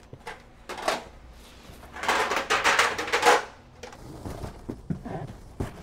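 Kitchen handling noises: a few light knocks and clicks, and about two seconds in a loud burst of rustling lasting over a second.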